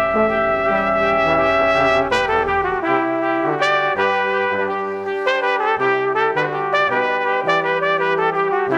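Background music from a brass quartet, trumpets and trombones playing a slow melody in sustained, overlapping notes. A low rumble under the music stops about three seconds in.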